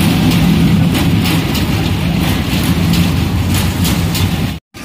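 Spinning fairground airplane carousel ride running: a loud steady mechanical rumble with light rattling clicks about two or three times a second. It cuts off suddenly near the end.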